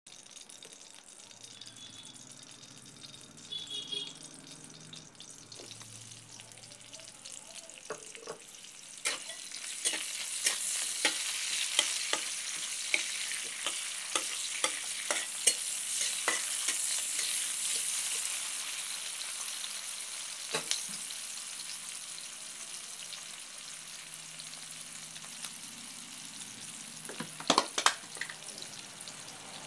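Sliced onions sizzling in hot oil in a metal pot: the sizzle starts suddenly about nine seconds in, is loudest for the next several seconds, then slowly eases. A spatula stirring them clicks and scrapes against the pot, with a few sharp knocks near the end.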